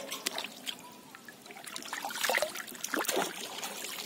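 Shallow muddy water trickling and splashing in irregular small bursts as a hand gropes through it and lifts out dripping fish, busier from about two seconds in.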